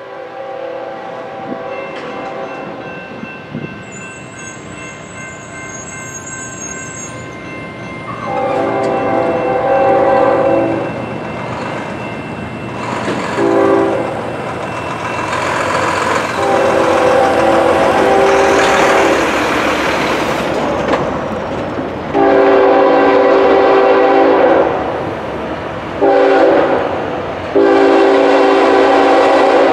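Norfolk Southern freight locomotive's air horn blowing for a grade crossing as the train approaches: several long blasts with a couple of short ones, getting louder. Under them the train's rumble builds and a crossing signal's bell rings.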